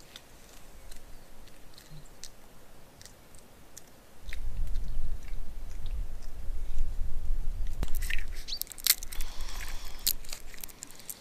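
Sparse small crunches and clicks of someone eating, then from about four seconds in a low rumble on the microphone, with sharp crinkling of a plastic bag being handled near the end.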